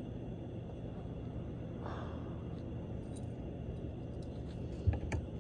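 Steady low hum with a faint higher whine, a soft breath about two seconds in, and a single short thump near the end.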